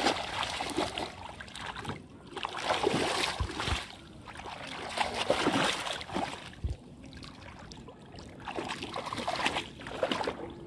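Shallow water splashing and sloshing in irregular bursts, as it is stirred by hand fishing, with a couple of short dull thuds.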